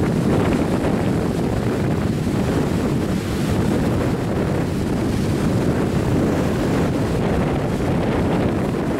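Strong west-south-west wind of about 7 to 8 m/s buffeting the microphone, a steady low rumble, with choppy sea washing in behind it.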